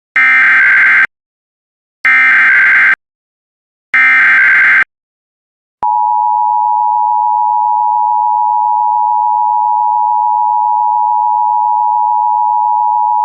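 Emergency Alert System opening: three one-second bursts of SAME header data tones about two seconds apart, then the EAS two-tone attention signal (853 and 960 Hz together) starting about six seconds in and held steady.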